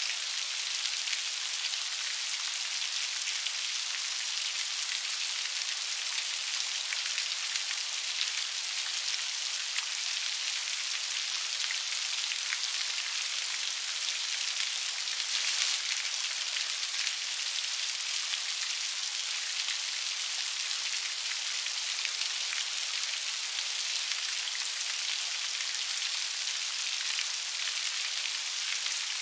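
Steady rain: a dense, even hiss of many small drops pattering, with no thunder or low rumble. It swells slightly about halfway through.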